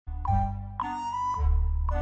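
Background music: a bright melody over a deep bass line, with new notes struck about every half second.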